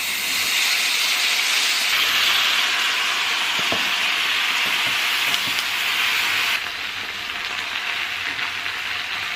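Food sizzling as it fries in a hot pan, a steady hiss that drops abruptly to a quieter sizzle about two-thirds of the way through.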